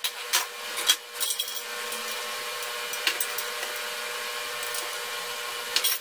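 Steel knocks and scrapes as all-thread rod is fed into square steel tubing: a few sharp clanks in the first second or so, one more midway and a couple near the end, over a steady background hum.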